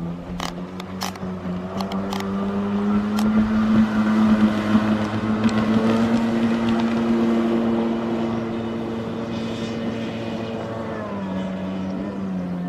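Two-stroke jet ski engine running under throttle, getting louder to a peak around the middle and then fading, with its pitch dropping near the end as it backs off.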